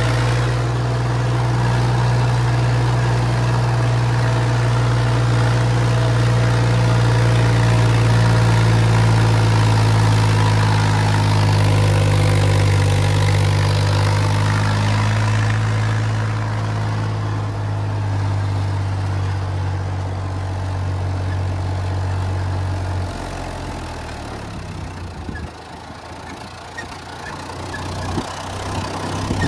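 Massey Ferguson 3060 tractor's diesel engine running with a steady low note; after about twenty-three seconds the note drops away and it runs on quieter.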